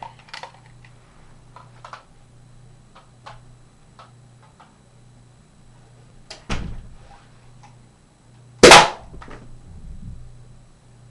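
Nerf dart blaster built from a Berserker's spring-plunger centre cannon: light handling clicks, a sharp clack about six and a half seconds in, then one loud, short shot about two seconds later.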